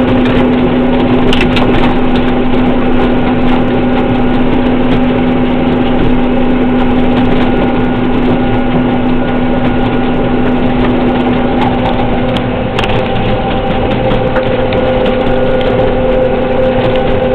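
New Holland HW320 self-propelled swather running at full throttle while cutting hay at about 5 mph: a steady engine and machinery drone heard from inside the cab. Its pitch shifts about twelve seconds in.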